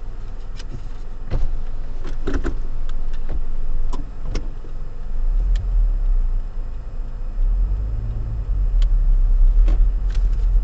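Car driving slowly, heard from inside the cabin: a steady low engine and road rumble that grows stronger about halfway through, with scattered short clicks and knocks.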